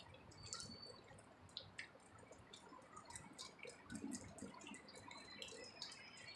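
Near silence, with faint, irregular clicks and ticks scattered throughout and a couple of brief, high, thin tones.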